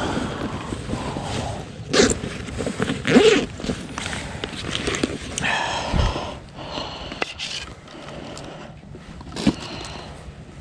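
Rustling, scraping and a few knocks of fishing gear being handled: a backpack, a rod and a knife moved about on rocky ground. There is a sharp knock near the end.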